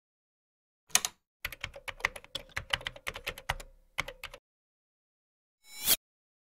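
Keyboard typing sound effect: a single knock, then a quick, uneven run of key clicks for about three seconds with a faint hum beneath. Near the end a short sound swells and cuts off abruptly.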